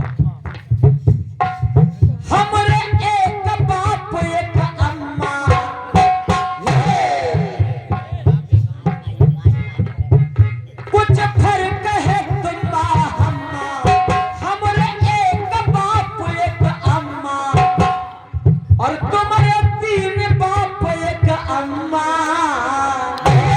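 Devotional kirtan singing: a solo voice sings a melodic line over a fast, steady hand-drum rhythm, pausing briefly a few times.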